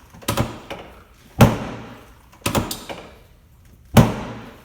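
Four sharp thuds about a second apart from chiropractic adjusting thrusts on the patient's hips, each striking the treatment table.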